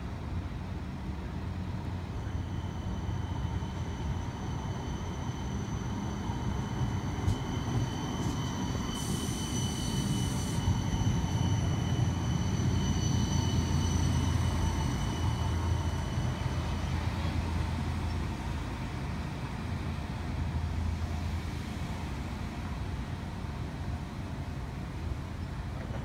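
A CAF Urbos electric streetcar running on street track under overhead power passes close by. Its rumble grows and is loudest about halfway through, with a steady high-pitched whine over it that fades once the car has gone by. A short hiss comes about ten seconds in.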